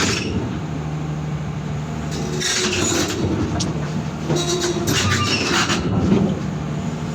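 Excavator's diesel engine running steadily. From about two and a half seconds in, its steel tracks squeal and clank in repeated bursts as it creeps forward slowly.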